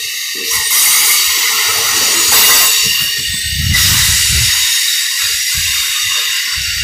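Amtrak California Zephyr's Superliner passenger cars rolling past and away as the train departs: a steady hiss of steel wheels on rail, with low rumbles about halfway through and again near the end.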